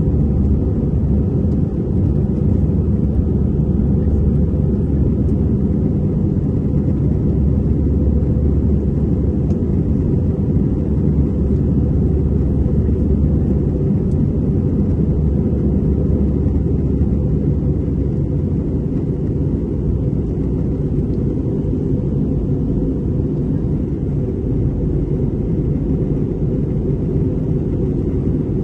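Steady low rumble of an Airbus A320 airliner in flight, heard inside the passenger cabin: engine and airflow noise.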